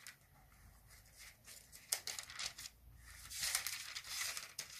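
Thin Bible pages being leafed through: a few dry rustles about two seconds in, then a longer run of rustling toward the end.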